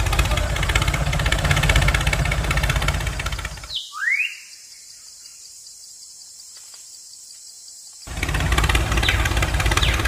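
Tractor engine idling steadily. About four seconds in it cuts off after a short rising whine, leaving only a faint low sound with a few light clicks, and the engine sound comes back about eight seconds in.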